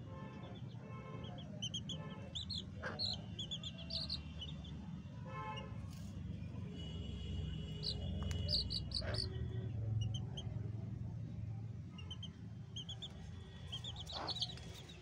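Young chicks peeping in clusters of short, high chirps, a few of them falling in pitch, over a steady low hum.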